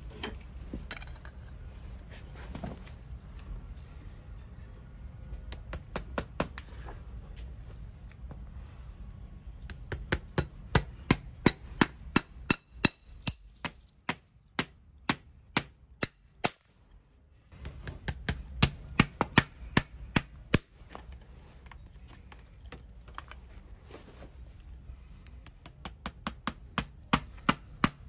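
Farrier's driving hammer striking horseshoe nails into a horse's hoof: runs of sharp, ringing metal taps, about three a second, with short pauses between nails.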